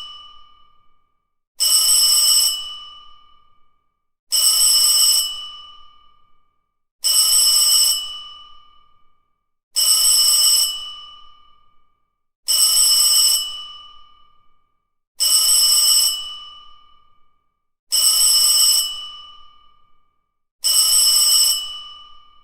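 School bell ringing in short bursts of about a second, each trailing off in a fading ring, repeated about every three seconds.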